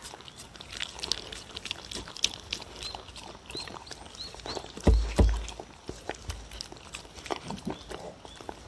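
A dog eating soupy food from a wooden bowl: a steady run of wet lapping, smacking and chewing clicks. Two heavy thumps come about five seconds in.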